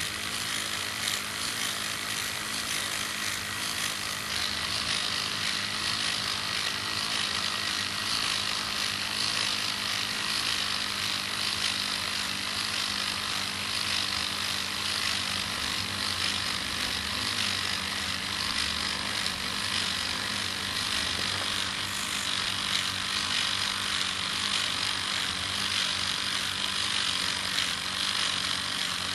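Small model steam engines of toy steam-powered vehicles running, with a steady rasping hiss of escaping steam that continues without a break.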